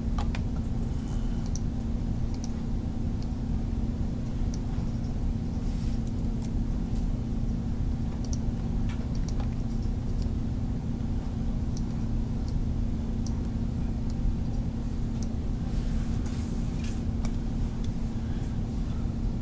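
Steady low electrical hum and room noise, with scattered faint clicks now and then.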